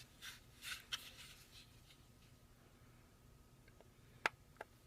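Back end of a pin punch pressed against the pins in a Glock's polymer frame to seat them: faint scraping in the first second, then a sharp click and a smaller one near the end.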